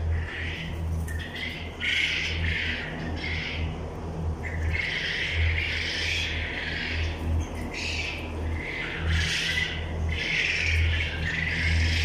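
A flock of white quail calling: many overlapping high calls in clusters a second or two long, over a steady low hum.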